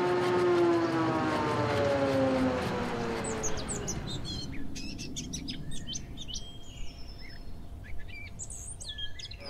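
Logo-sting sound effect: a vehicle-like sound falls in pitch and fades out over the first few seconds. It gives way to birds chirping until the end.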